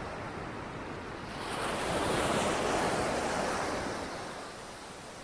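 Small wave breaking and washing up over sand: the rush of surf swells about a second in, peaks, then drains away near the end.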